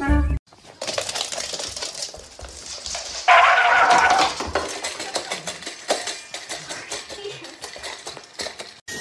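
Dog eating from a stainless steel bowl: rapid small clicks and clinks of food and teeth against the metal. About three seconds in there is a loud pitched squeal lasting about a second.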